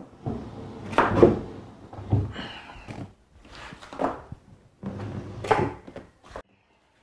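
A padded ottoman loaded with a power amplifier and equalizer is shoved across a wooden floor in several pushes, each scraping and ending in a thunk.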